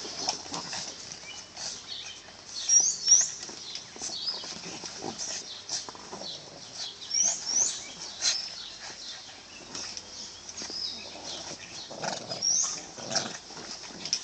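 Two Boston terriers play-fighting mouth to mouth, with irregular scuffles and short knocks all through, and short high rising chirps a few times.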